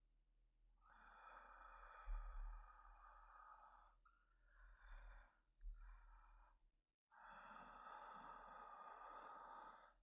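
A sleepy man's slow, heavy breathing close to the microphone, quiet: two long breaths, one starting about a second in and one near the end, with shorter breaths between them.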